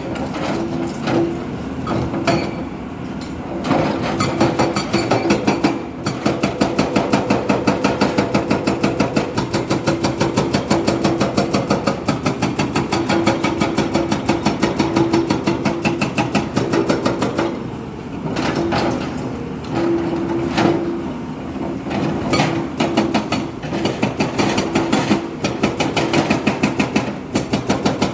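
Heavy diesel machine running with a fast, even clatter of about five beats a second, which drops out briefly a few times.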